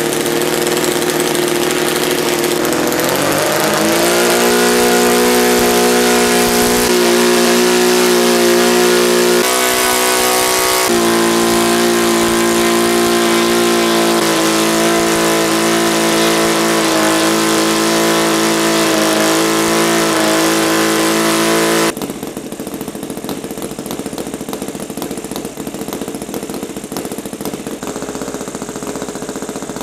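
Saito FG-19R3 three-cylinder four-stroke petrol radial model engine running on a test stand and swinging a wooden propeller. It is still being run in and its running is uneven. The throttle opens about three seconds in and the engine climbs to higher revs and holds there; about 22 seconds in the sound drops suddenly to a quieter level.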